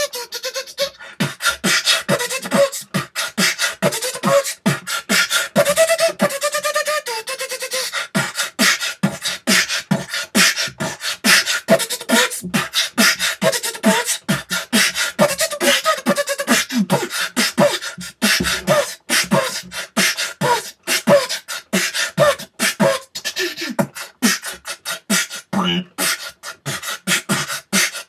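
Beatboxing: a fast, continuous run of mouth-made drum sounds, with short hummed melody lines woven in.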